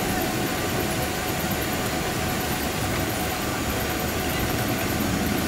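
Cabin noise of a Boeing 777-300ER rolling out on the runway after landing, spoilers up: a steady rumble of the GE90 engines and the wheels on the runway.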